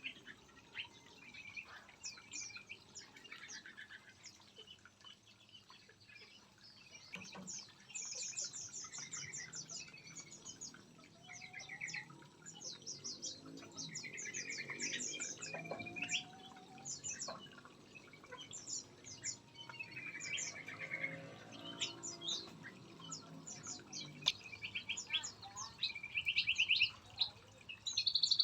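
Several small songbirds in an aviary chirping and calling, with short high chirps and quick trills from different birds overlapping throughout; the loudest trill comes at the very end.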